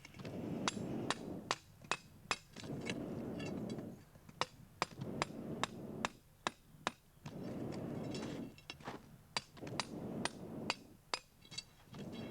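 Hammer blows on iron with a faint metallic ring, in runs of about two to three strikes a second, broken by stretches of low rushing noise.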